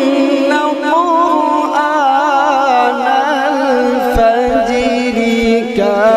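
A man's voice in melodic Quranic recitation (qirat), drawing out long held notes with wavering, ornamented pitch.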